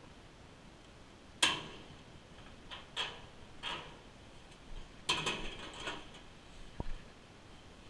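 A handful of sharp metal clanks and knocks from a clothes dryer's drum and sheet-metal cabinet as the drum is lifted and fitted back into place, with a dull thud near the end.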